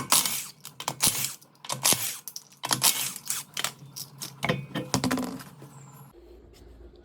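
Irregular sharp clicks, clinks and knocks, several a second, over a steady low hum; they cut off suddenly about six seconds in, leaving a faint low hum.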